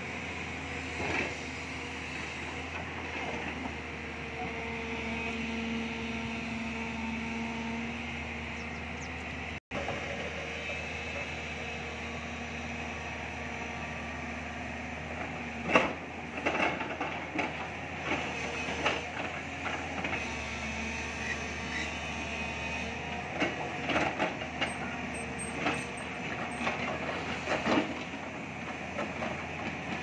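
Tracked excavator's diesel engine running steadily while it digs. From about halfway, the steel bucket scrapes and knocks through stony soil, with rocks clattering in quick irregular knocks.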